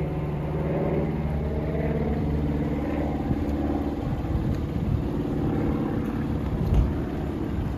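Pickup truck engine running: a steady low hum for about the first three seconds, then a rougher, uneven rumble, with a low thump shortly before the end.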